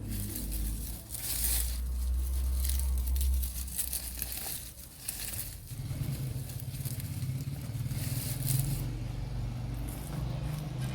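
Leafy bean plants rustling and crinkling as they are pulled up and handled, over a low steady rumble.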